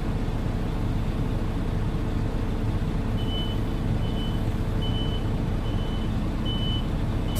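Concrete mixer truck's diesel engine running steadily, joined about three seconds in by a reversing alarm beeping about once every 0.8 seconds.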